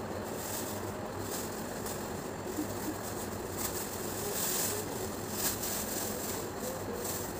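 Plastic packaging and cloth rustling now and then as they are handled and folded, over a steady background hum.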